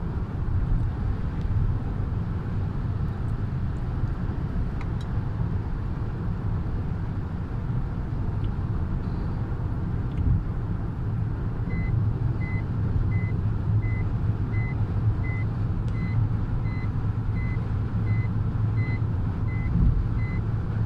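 Steady road and engine noise inside a car's cabin at highway speed. About halfway in, a warning chime starts beeping evenly, about three short high beeps every two seconds.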